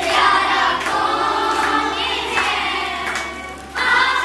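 A group of women and children singing together, with hand clapping, and a short break between lines near the end.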